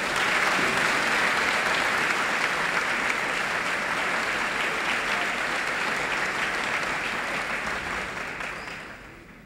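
Audience applauding, a dense, even clapping that dies away over the last second or so.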